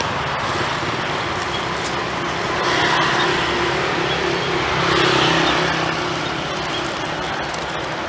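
Street traffic: cars and motorbikes passing on the road, the sound swelling as vehicles go by about three and five seconds in.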